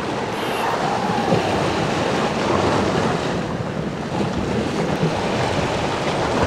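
Sea surf washing and breaking steadily against the shoreline rocks.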